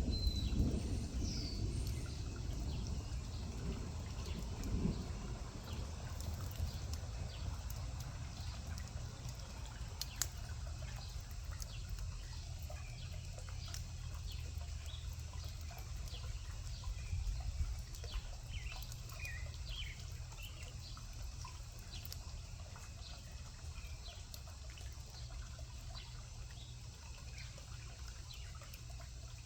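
Water dripping and trickling after rain, with scattered small drips, a few short bird chirps and a steady low rumble underneath.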